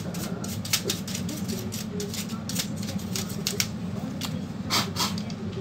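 Scattered clicks and light knocks of a screwdriver and fingers on a disassembled Dell Inspiron 1545 laptop's metal and plastic chassis, with a louder cluster of clicks near the end. A steady low hum runs underneath.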